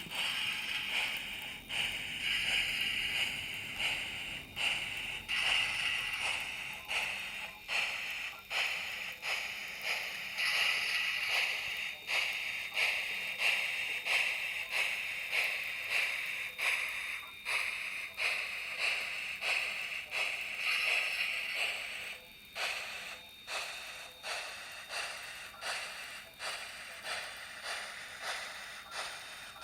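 Steam-locomotive chuffing from a model locomotive's QSI sound decoder, played through its small onboard speaker: slow, even chuffs a little over one a second over a steady hiss. The chuffs get slightly quieter about three quarters of the way through.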